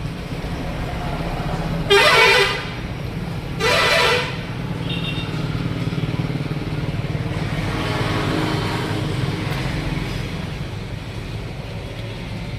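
A vehicle horn honks twice, two short blasts about a second and a half apart, over a steady low engine and traffic rumble.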